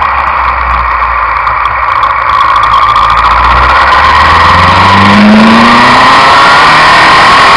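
Suzuki Inazuma 750's inline-four engine pulling through the gears, its carburettors freshly adjusted. The engine note climbs steadily in pitch from about halfway in as the bike accelerates.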